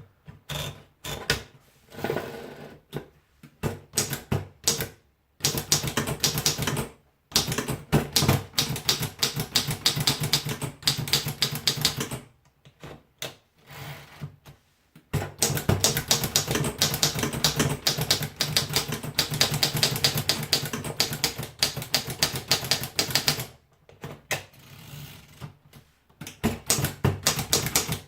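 Mercedes Prima typewriter being typed on: fast runs of sharp key strikes, broken by a few short pauses.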